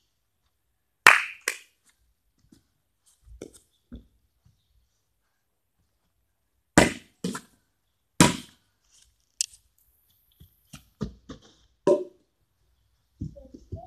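Sharp cracks and knocks from a game of backyard cricket with a plastic bat and ball, several of them in pairs about half a second apart, with softer knocks in between.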